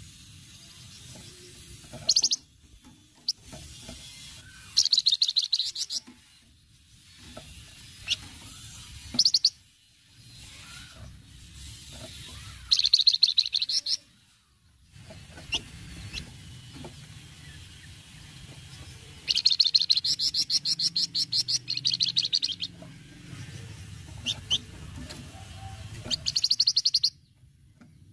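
Javan fulvetta (wergan jawa, 'flamboyan') giving its rapid chattering 'cretet' rattle: fast trains of high ticks in bursts lasting one to three seconds, repeated several times with single sharp notes between.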